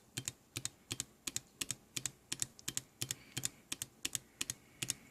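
A small pushbutton switch pressed and released over and over, about three times a second, each press giving a pair of clicks: the clock of a breadboarded RCA 1802 CPU being stepped by hand, one cycle per press.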